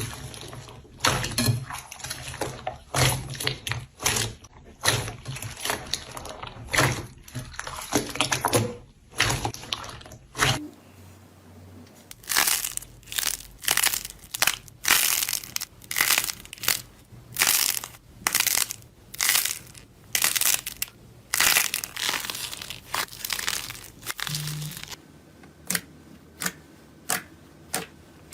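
Slime being squeezed and pressed by hand, giving a run of crisp crackling, crunching pops about once or twice a second. The character of the sound changes at about ten seconds in and again near the end.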